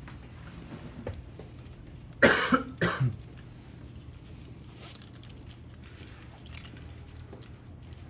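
A person coughs twice in quick succession, about two seconds in. Around it, faint clicks of a metal snap clip and webbing being handled.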